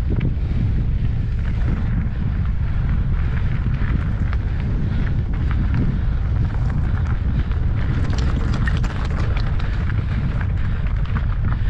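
Wind buffeting hard on the microphone of a mountain bike in motion on a rough trail. Many sharp clicks and rattles of the bike over rough ground, thickest from about eight seconds in.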